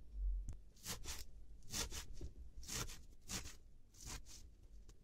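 Kitchen knife chopping fresh Swiss chard leaves on a cutting board, about five crisp cuts roughly a second apart. There is a low thump at the very start.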